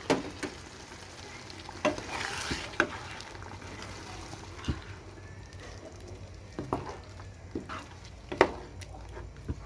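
Tomato-based chicken sauce being stirred in a pan over the flame: a utensil scrapes and knocks against the pan every second or so over a low sizzle.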